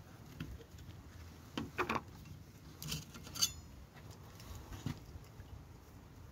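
Light clinks and knocks of a camping stove's cook pot and its lid being handled: the pot lifted off the gas stove and the lid set down on a wooden bench. A handful of separate small knocks, the sharpest a bright metallic clink about three and a half seconds in.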